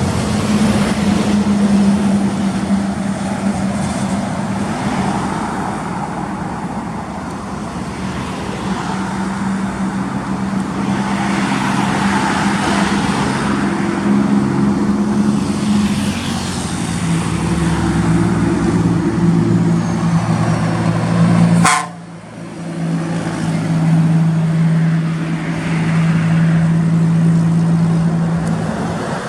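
Scania truck's diesel engine pulling hard under load, a loud steady drone that steps down in pitch partway through. About two-thirds of the way in there is a sharp click and the sound briefly drops away, then the engine carries on at a steady, lower pitch.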